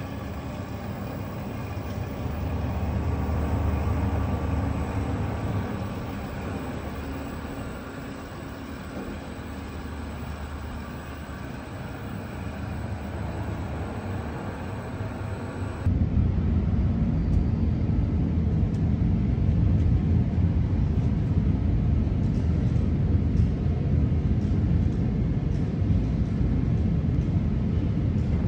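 A machine running steadily, with a deep hum. About sixteen seconds in it cuts suddenly to a louder, deeper run of the same kind, with faint ticks over it.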